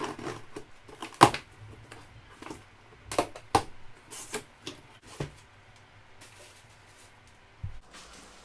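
Cardboard box and foam packing of a computer case being opened and handled: scattered knocks, clicks and rustles, the sharpest about a second in and a few more between three and five seconds in.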